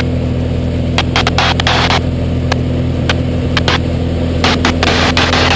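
Aerobatic plane's engine droning at a steady pitch, heard from inside the cockpit during a high-speed dive, with a scatter of short sharp clicks.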